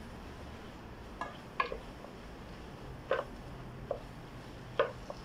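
Wooden spoon stirring carrots, onions and flour in a pot, knocking against the pot about five or six times at uneven intervals.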